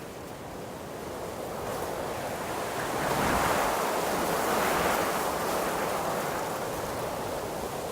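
Wind blowing through trees, a rushing of leaves and branches that builds into a strong gust a few seconds in and then eases off.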